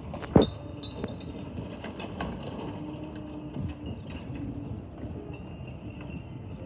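Garbage truck working while its crew empties bins: a steady engine and hydraulic hum with scattered clanks and knocks, the loudest a sharp knock about half a second in.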